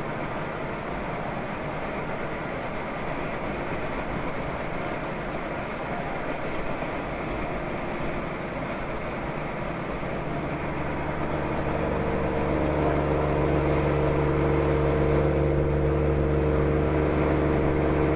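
Semi truck cab noise at highway speed: a steady road and engine drone. From about ten seconds in, a steady low engine hum comes in and the sound grows louder.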